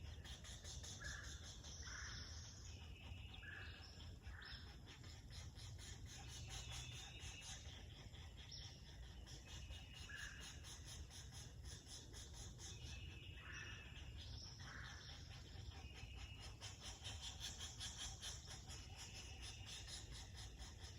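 Faint natural evening chorus: insects trilling steadily at a high pitch, with a short higher call repeating every second or two and a few brief lower calls, over a low steady rumble.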